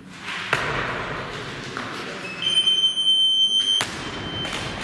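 Jerk of a 190 kg Eleiko barbell. The lifter's feet land on the platform with a thud about half a second in, over rising crowd noise in the hall. A steady high buzzer beep, the referees' down signal, sounds for about a second and a half, and then the bumper-plated bar is dropped and crashes onto the platform.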